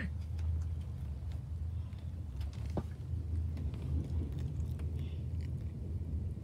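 Steady low rumble of a moving passenger train heard from inside the carriage, with a few faint clicks and knocks.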